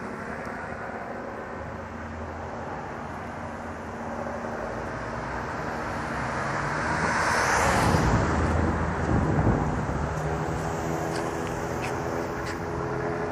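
Street traffic, with one vehicle passing close and swelling to its loudest about eight seconds in.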